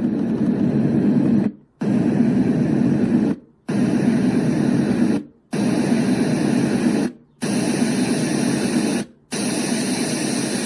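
White noise sound machine playing its noise sounds one after another, six stretches of steady hiss about two seconds each, with a brief silent gap at every change of sound. The later sounds are brighter and hissier than the first ones.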